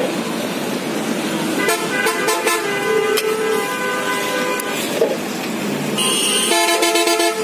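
Street traffic with vehicle horns honking: one long horn blast from about two to nearly five seconds in, and another horn near the end, over a constant traffic hiss.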